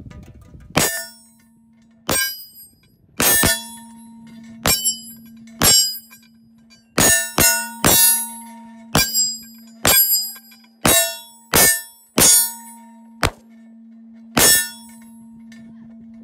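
Bullets striking steel shooting targets, a silhouette plate and a round gong: about fifteen sharp metallic hits at uneven intervals, each ringing briefly. A steady low hum runs underneath from about a second in.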